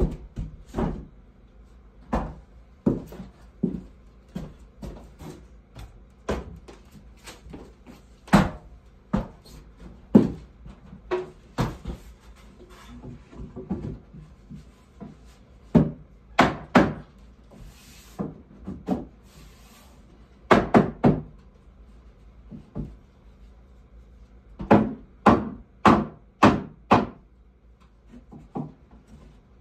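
Hammer knocking wooden ceiling boards into place overhead: sharp, irregular wooden knocks, with quick runs of three to five blows, the longest near the end.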